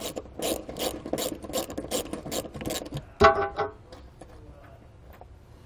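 Ratchet wrench clicking rapidly, about six or seven clicks a second, as a D-ring bolt is loosened in a Jeep's cargo floor. The clicking stops after about three seconds, and a short ringing sound follows.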